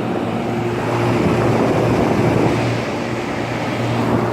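LG air conditioner outdoor unit running: a steady hum from the compressor under the noise of the condenser fan, a little louder for a couple of seconds in the middle.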